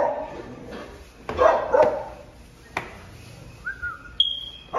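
A dog barking: one bark at the start and a louder one about a second and a half in.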